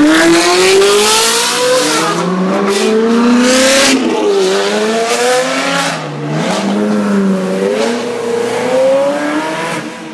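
Supercar engine revving hard as it pulls away, its pitch climbing, dropping back at gear changes about four and six seconds in, then climbing again before fading near the end.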